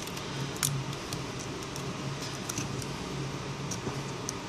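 A few faint, scattered clicks and taps as fingers press a replacement charging-port flex cable into an iPhone 5's metal housing, over a low background hum.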